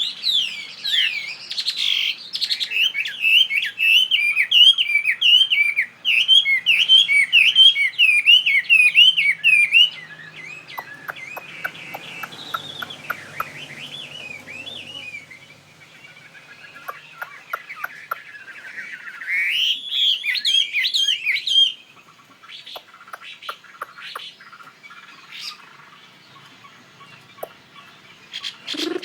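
Chinese hwamei (laughing thrush) singing rapid, repeated warbling phrases. The song is loud for the first ten seconds and again briefly near twenty seconds, softer and broken in between and afterwards, with scattered short clicks.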